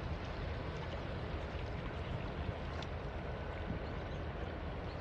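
Steady low rumble of a freight train rolling across a steel truss trestle, mixed with the rush of the river below, with a few faint clicks.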